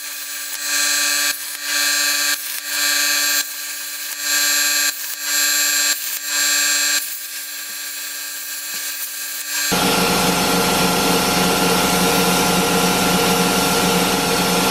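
CNC plasma cutter cutting sheet metal: the arc hisses on and off every second or so as it cuts one hole or slot after another, over a steady hum from the machine. About two-thirds of the way through, a louder steady mechanical noise takes over.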